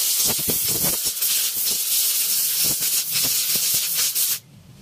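Loud steady hiss of pressurized gas being released, with a few small clicks, starting suddenly and cutting off sharply after about four and a half seconds.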